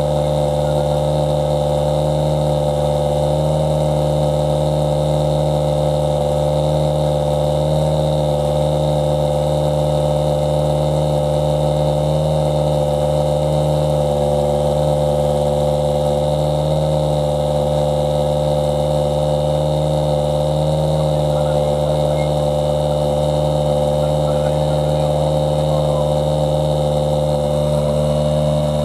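Toyota Yaris WRC rally car's 1.6-litre turbocharged four-cylinder engine idling steadily at the exhaust outlet, holding one constant pitch with no rev changes or bangs.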